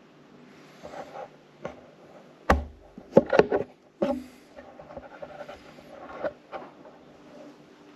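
A cluster of knocks and rubbing from handling about two and a half to four seconds in, one of them a deep thump, over a steady low hum.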